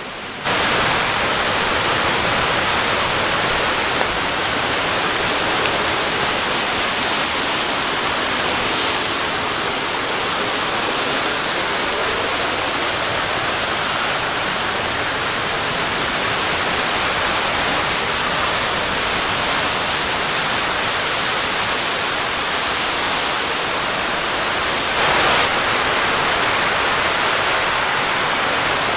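Raymondskill Falls pouring down in a steady, even rush of falling water. It gets louder suddenly about half a second in and swells briefly near the end.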